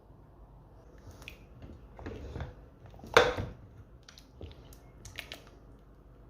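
A few irregular knocks and clatters of handled objects, the loudest a sharp knock about three seconds in.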